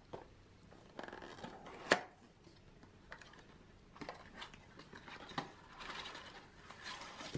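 Small cardboard box handled and its flaps opened, then shredded paper filler rustling as it is pulled out; a sharp tap about two seconds in.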